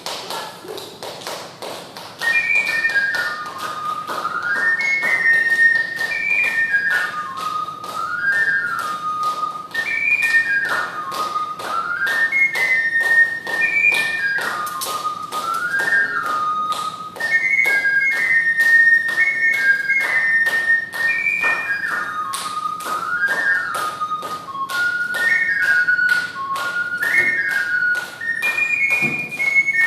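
Ocarina playing a single-line melody in pure, flute-like notes, starting about two seconds in, over a steady, fast clicking beat.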